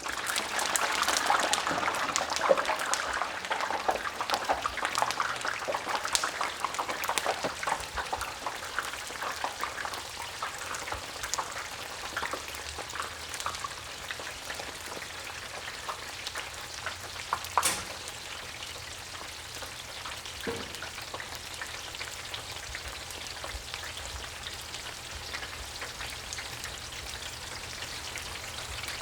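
French fries deep-frying in a fryer basket fully submerged in hot oil: dense crackling and popping of bubbling oil. It is busiest and loudest over the first several seconds, then settles into a steadier sizzle, with one louder pop about 17 seconds in.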